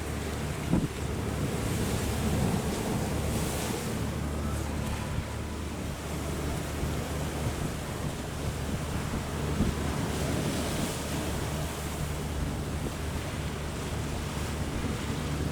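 Strong wind buffeting the microphone over rough harbour waves, with a low steady rumble underneath. The wind swells in gusts, and there are two brief knocks, one near the start and one about two-thirds of the way through.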